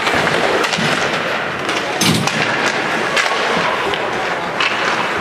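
Ice hockey in play: repeated sharp clacks of sticks and puck, with a duller thud about two seconds in, over steady arena noise.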